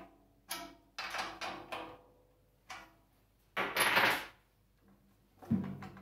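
Fingertip taps on a 13-inch tom's batter head near the tension rods, each a short ringing note, while the head is brought up in pitch with a drum key. Around the middle there is a louder scraping rustle as the drum is handled, and near the end a low knock.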